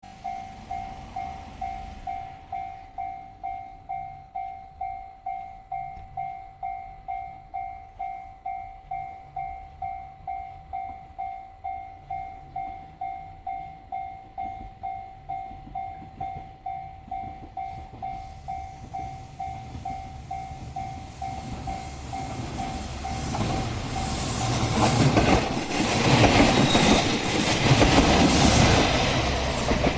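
Japanese level-crossing warning bell ringing in even electronic strokes, about two a second. From about 22 seconds in, a train comes up and passes over the crossing, its running noise growing loud and covering the bell.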